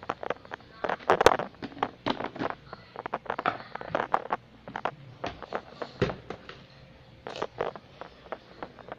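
Handling noise of a clear plastic jar of dry cereal being moved about: a quick irregular run of clicks, knocks and rustles as the jar and its lid are handled and the cereal shifts inside.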